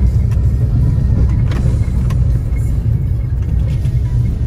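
Four-wheel-drive vehicle driving, a steady low rumble of engine and road noise.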